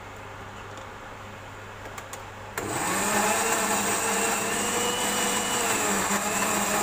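Countertop blender switched on about two and a half seconds in, its motor running loud and steady as it grinds fried chillies and spices into a sambal paste; its pitch sags a little under the load and recovers. Before it starts, only a low steady hum.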